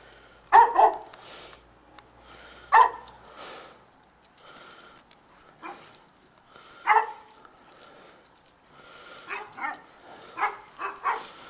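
Dog barking in short, sharp barks spaced a few seconds apart, with a quicker run of barks near the end.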